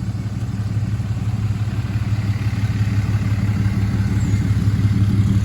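A vehicle engine running steadily with a low hum that grows slowly louder, as of a vehicle coming closer.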